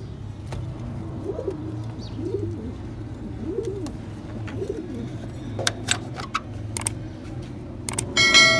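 Domestic pigeons cooing, about four low coos one after another, followed by a few sharp clicks. Near the end a sudden metallic ring sounds and dies away slowly.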